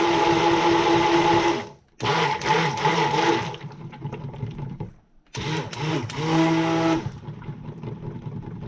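Immersion (stick) blender mixing cold process soap batter in a plastic pitcher, switched on and off in short pulses. It runs until about a second and a half in, cuts out, runs again for about a second and a half, then once more for about a second and a half later on, with quieter clatter of the blender head in the batter between pulses.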